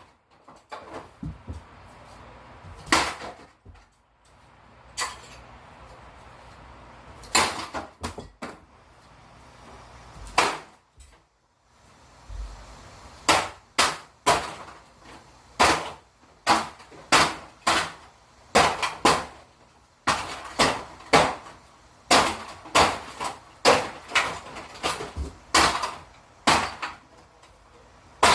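A string of sharp knocks and cracks, hard strikes on a target. They are scattered at first, then come quicker, about one to two a second, from about halfway.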